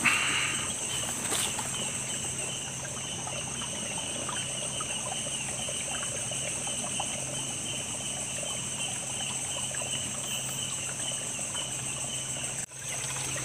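Night insects chirping over the trickle of a small stream: one in a fast pulsing trill, another in a steady high buzz. The sound cuts out for a moment near the end.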